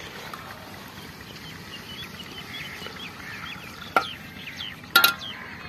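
Small birds chirping in quick, repeated short calls, then two sharp clinks of steel cooking utensils knocking together, about four and five seconds in, with a brief metallic ring.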